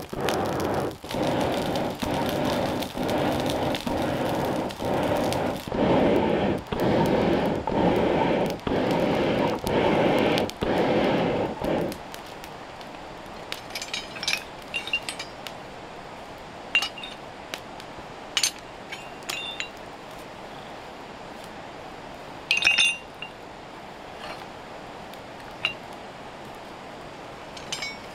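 Charcoal forge fire roaring in rhythmic pulses, a little under two a second, as air is pumped into it; the pulsing stops abruptly about twelve seconds in. After that, iron tools clink sharply now and then as they are picked through in a wicker basket.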